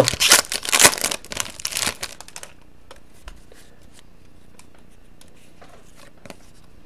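Foil trading-card pack being torn open and crinkled for about two seconds, then faint scattered clicks as the cards are slid out and handled.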